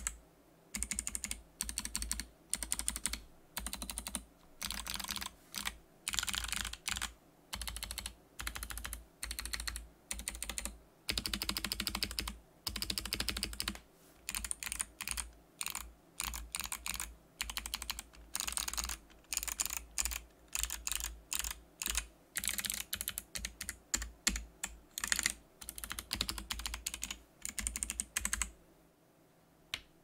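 Typing test on a KPRepublic EEPW84 mechanical keyboard fitted with tape-modded Kailh BOX Pink clicky switches: fast keystrokes in bursts of about a second with short pauses between them, the longest run of typing near the middle. The typing stops about a second before the end, followed by one lone click.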